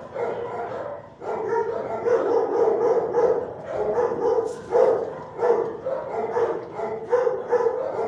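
Shelter dogs barking repeatedly and fast, the barks running almost without a pause and getting louder about a second in.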